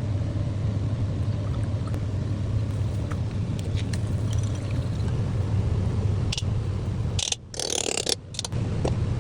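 A steady low kitchen rumble while noodles are stir-fried, with a few faint light taps. The sound drops out briefly twice near the end.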